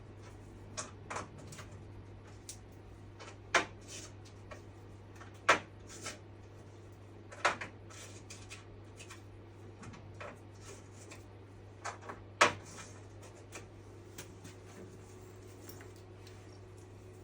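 Scattered sharp clicks and knocks of hand tools and parts being handled while a gasket and its bolts are refitted on a 1984 Honda CR250 engine, four of them much louder than the rest. A steady low hum sits under them.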